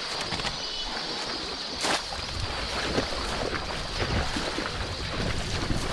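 Shallow muddy pond water sloshing and splashing as people wade through it and work bamboo polo fish traps. A single sharp knock comes about two seconds in.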